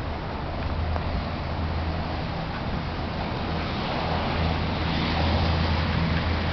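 Steady outdoor rain noise, an even rushing hiss over a low continuous hum, growing slightly louder after about four seconds.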